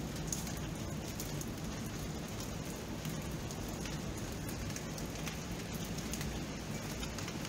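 Steady rain falling at night, with scattered sharp ticks of individual drops over an even hiss.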